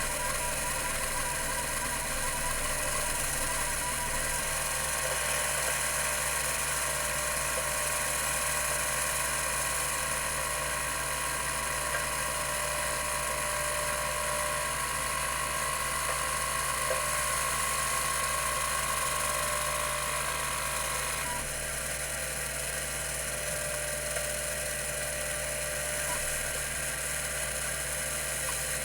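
CMI CM-5412 10 MB 5.25-inch hard drive running, its two platters spinning at 3600 RPM with a steady mechanical whir and several steady whining tones. A high whine grows louder about four seconds in and cuts off about 21 seconds in.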